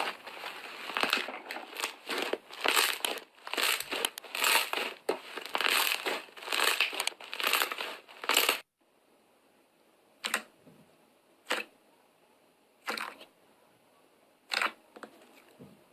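Slime being squeezed and worked by hand: a dense run of wet crackles and pops that stops abruptly about eight and a half seconds in. Then come four separate clicks or pops, spaced about a second and a half apart.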